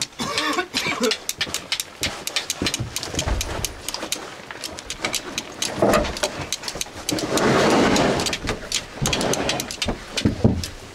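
Flint and steel striking: a steel striker scraped repeatedly against the sharp edge of a flint, many quick sharp clicks in irregular runs, to throw sparks onto char cloth held on the flint.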